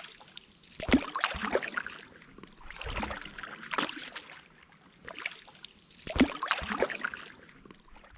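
Kayak paddle blades dipping and splashing through the water in repeated strokes, a surge of splashing every two to three seconds.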